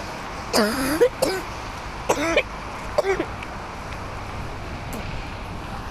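A person's voice making four short exclamations in the first few seconds, over a steady hiss of wind and rain.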